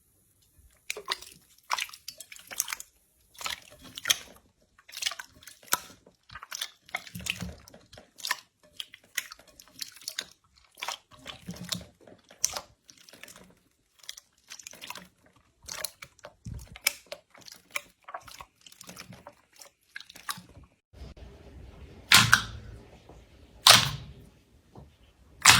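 Slime being squeezed and pressed by hand, giving irregular sticky crackles, clicks and small pops. Near the end a few louder, sharper pops come about a second and a half apart.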